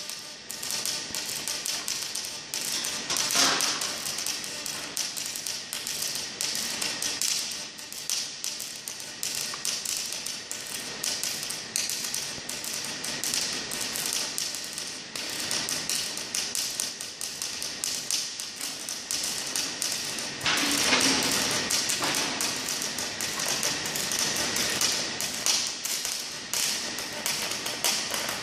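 Robotic arc welding torch laying a weld: a dense, irregular crackle and sputter of the arc that starts as the arc strikes and cuts off sharply as it stops. It swells louder briefly about three seconds in and again around twenty-one seconds in.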